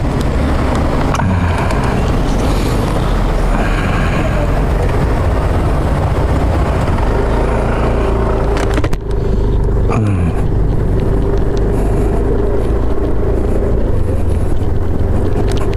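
Motorcycle ride: the engine running and wind and road noise on the camera as the bike pulls away from a stop and gathers speed, with a steady engine tone coming in about halfway through.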